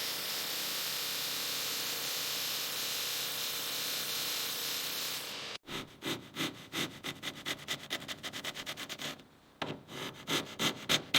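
A steady hiss, then an abrupt change to quick back-and-forth rubbing strokes, several a second, which pause briefly and come back louder near the end.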